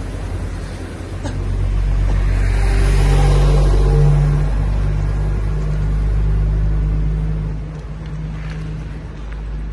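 Heavy diesel trucks passing close by, their engines giving a deep, steady low drone that swells to its loudest about three to four seconds in and then eases off.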